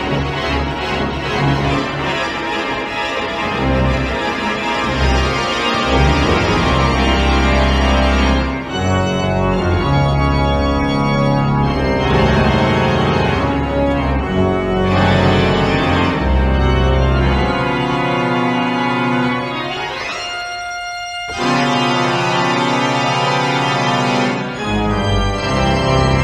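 St Asaph Cathedral's pipe organ playing loud sustained chords over deep pedal bass notes. About two-thirds of the way through, the bass drops away and the sound thins to quieter held upper notes for a few seconds before the full organ returns.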